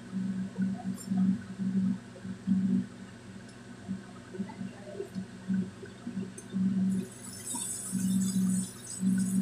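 Ginataang beans in coconut-milk sauce being poured and scraped from a metal wok into a ceramic bowl with a spatula, the liquid splash and scraping starting about seven seconds in. Under it a low hum comes and goes throughout.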